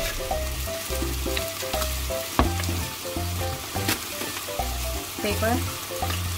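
Sliced onion sizzling in a frying pan, under background music with a repeating bass line.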